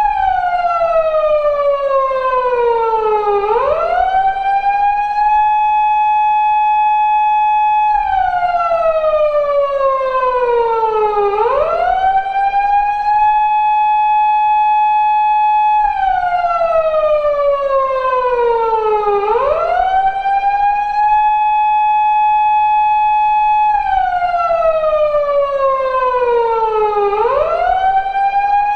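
Japanese police car siren of the 2000s type used on 170- and 180-series Toyota Crown patrol cars, recreated as a sound effect, sounding in a repeating 8-second cycle. Each cycle the tone slides down over about three and a half seconds, swoops quickly back up, and holds a steady high note for about four seconds; it goes round about three and a half times.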